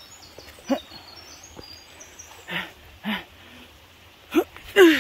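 A woman's short grunts and exclamations of effort as she scrambles up a steep bank: five brief voiced sounds, the last two close together near the end and the loudest.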